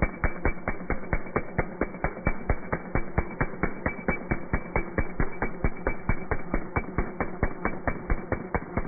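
Impact drill hammering in slowed-down audio, a deep, even clatter of about six blows a second over a low motor hum.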